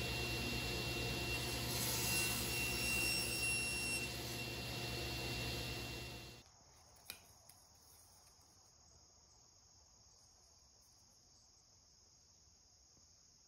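Table saw running steadily with a thin high whine, a little louder for a couple of seconds while a crosscut sled carries a block through the blade to slice end-grain veneer. About six seconds in it stops abruptly, leaving a faint steady high hiss and a single sharp click.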